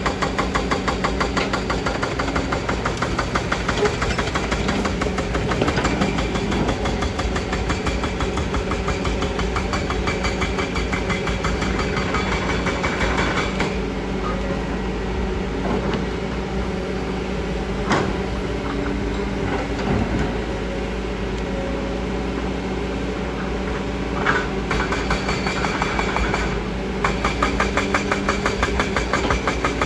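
Kobelco excavator's diesel engine running with a steady pulsing beat. It eases off about halfway through and works harder again near the end, with two sharp knocks in the quieter middle stretch.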